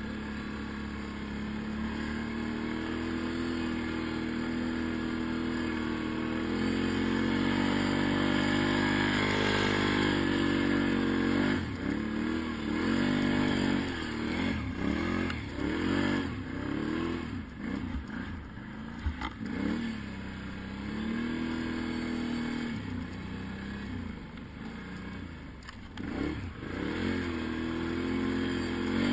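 Quad bike (ATV) engine running and picking up revs, then revving up and down over and over under the throttle, with scattered knocks and clatter. It settles back to a steady note near the end.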